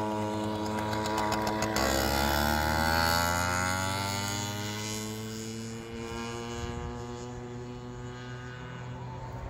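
Motorcycle engine pulling through a corner on a small circuit: its pitch drops about two seconds in, then climbs steadily as the bike accelerates away, growing fainter with distance.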